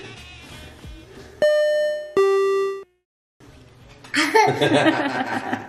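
A two-note ding-dong chime, a higher note followed by a lower one, each ringing briefly and fading. Near the end a toddler laughs, with voices.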